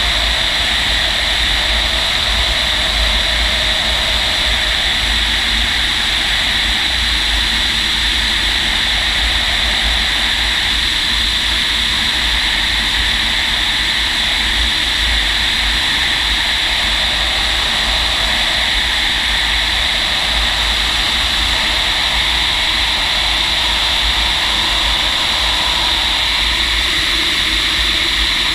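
Steady rushing airflow noise inside a Fox glider's cockpit in flight, with a low wind rumble on the microphone. The level stays even throughout, with no engine note.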